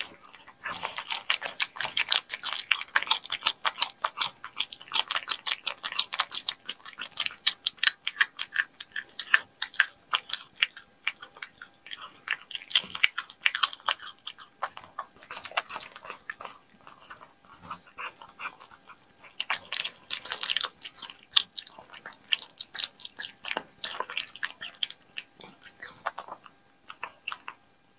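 Cat chewing raw meat: quick, wet clicking chews, several a second, in runs broken by short pauses.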